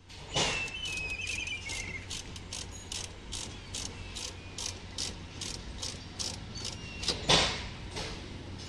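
Ratchet wrench clicking in short repeated strokes, a few clicks a second, as the bolts holding a car's front seat to the floor are undone to take the seat out. A louder knock comes about seven seconds in.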